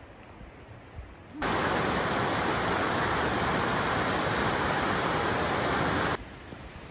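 Loud, steady rush of water, a river or cascade, cutting in suddenly about a second and a half in and cutting off just as suddenly near the end.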